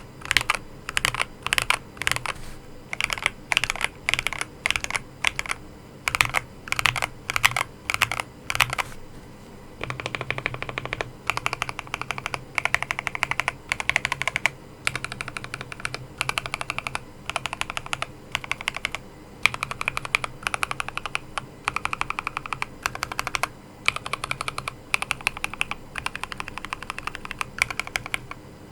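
Mechanical keyboard with Akko CS Jelly White linear switches being typed on. Separate keystrokes come for about the first nine seconds, then a brief pause, then fast continuous typing.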